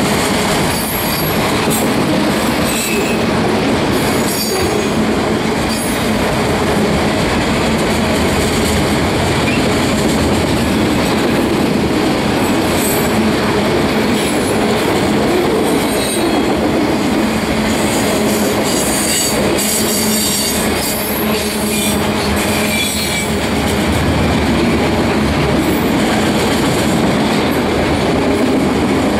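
Freight train of autorack cars rolling past close by, a loud, steady rumble of steel wheels on the rails. Intermittent high-pitched wheel squeal comes and goes, strongest a little past the middle.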